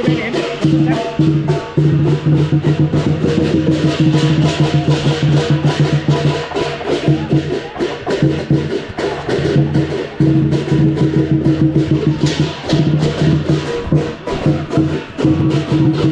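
Chinese lion dance percussion: a large lion drum beaten in a fast, driving rhythm with clashing cymbals.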